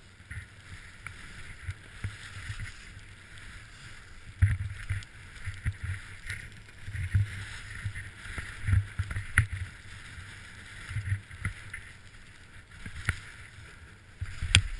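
Skis hissing through soft snow, heard through a helmet-mounted camera, with irregular low thumps as the skis ride over bumps, most of them from about four seconds in.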